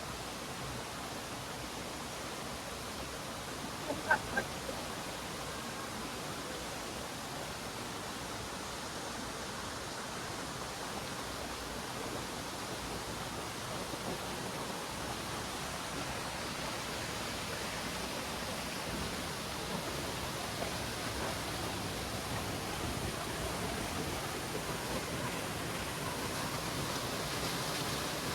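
Rushing water of a waterfall: a steady, even hiss that grows slightly louder toward the end, with two brief knocks about four seconds in.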